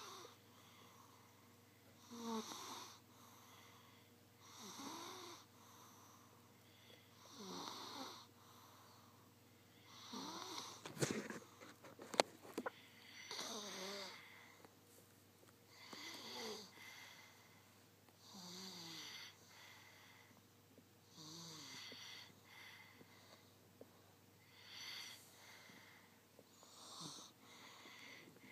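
Soft, wheezy snoring from a sleeper: about ten breaths, one every two and a half to three seconds, each with a whistling pitch that bends. A louder snort with sharp clicks comes about eleven seconds in.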